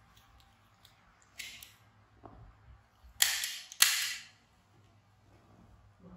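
Two short, loud rips about half a second apart as the adhesive tabs of a disposable diaper are pulled free, with a fainter rustle of the diaper a couple of seconds before.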